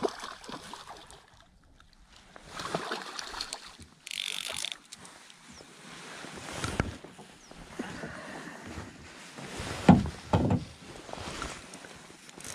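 A fish splashing at the surface on the end of a fly line, then a fly reel being handled and wound on a small boat, with a short reel buzz about four seconds in and two sharp thumps near the end.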